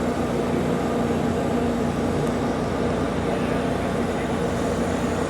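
A steady mechanical drone with a constant low hum and no breaks or impacts.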